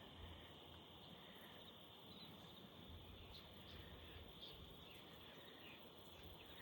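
Quiet field ambience with a faint, steady insect chorus, crickets trilling in one even high band, and a few faint short chirps scattered through.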